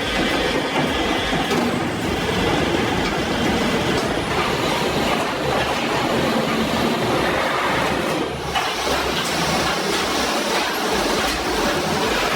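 Heavy industrial machinery running with a dense, steady mechanical noise, which dips briefly and changes character about eight and a half seconds in.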